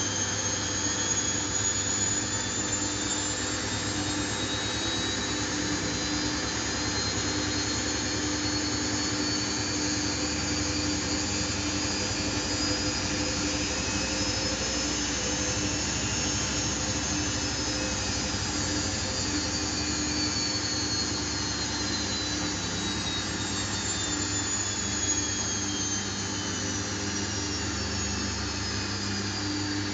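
Samsung WF70F5E0N4W washing machine on its intermediate spin, drum and motor running steadily under a high electronic whine. The whine rises in pitch for about the first half as the drum speeds up, then slowly falls as it eases back.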